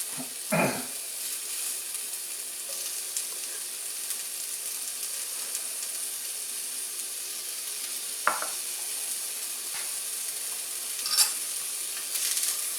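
Onions and pickled jalapeños sizzling steadily in a frying pan, stirred with a utensil that knocks against the pan three times: once right at the start, once about eight seconds in and once near the end.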